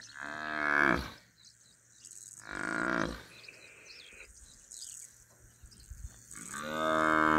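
African buffalo cow bellowing three times in distress under attack by two lionesses. Each call lasts about a second, falling in pitch. The middle call is rougher and the last one longer.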